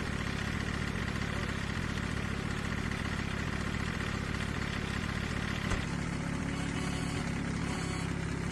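An engine idling steadily, with one sharp click a little past halfway, after which the sound shifts slightly.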